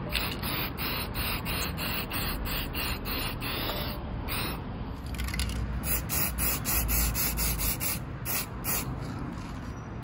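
Aerosol spray-paint can spraying paint onto an alloy wheel, a continuous hiss.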